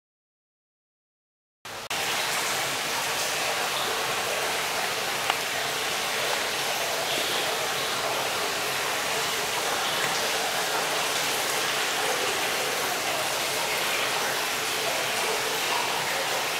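Silence at first, then a steady rush of running water cuts in abruptly about two seconds in, with one brief tick about five seconds in.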